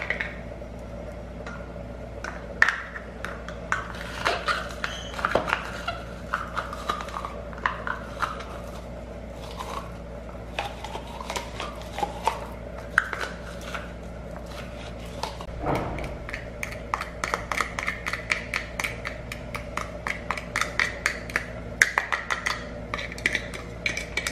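Garlic being crushed by hand in the kitchen: a string of sharp taps and knocks, scattered at first and coming quickly and densely in the second half, over a low steady hum.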